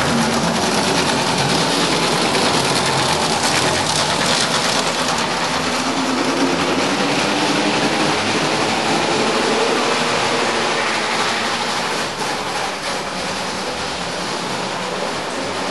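Motorised LGB garden-scale model tram running along its track, its motor and wheels whirring steadily. A little quieter in the last few seconds as it moves away.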